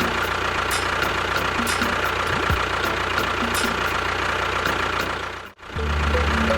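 Engine idling steadily, cutting off abruptly about five and a half seconds in, after which music starts.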